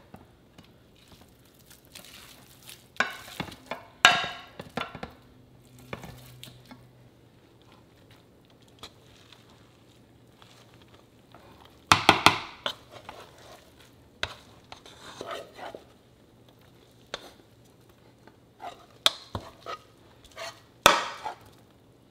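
Cooked ground turkey being scraped and knocked out of a copper-coloured nonstick pan into a plastic tub of dog food: scattered scrapes, knocks and clatters of the utensil against the pan, with quiet gaps between and the loudest clatters about twelve seconds in and near the end.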